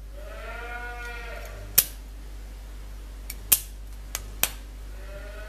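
Arc welder humming steadily, with a few short sharp cracks as the arc is struck to lay a small tack blob on a steel screwdriver shaft. A drawn-out call whose pitch rises then falls sounds about a second in.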